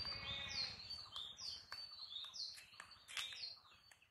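Birds calling over and over, each a short high note sliding downward, about twice a second, with scattered light crunches of footsteps on a path of dry leaves.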